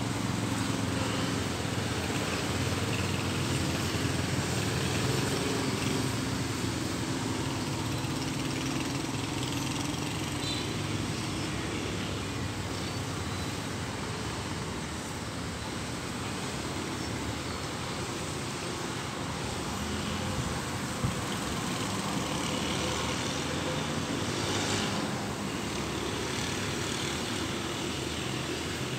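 Steady outdoor background drone of distant motor traffic, a low engine hum over an even wash of noise, with a single short click about two-thirds of the way through.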